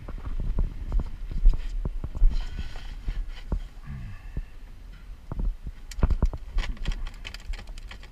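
Irregular knocks and thumps as a sheepshead is handled and pressed against a measuring board on a fiberglass boat, with a quick run of sharp clicks about six seconds in.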